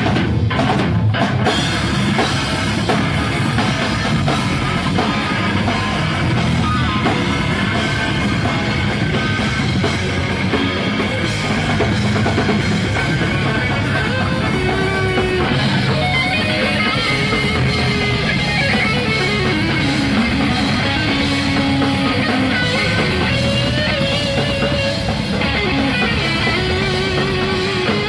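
A heavy rock band playing live and loud: electric guitar over a drum kit, without a break.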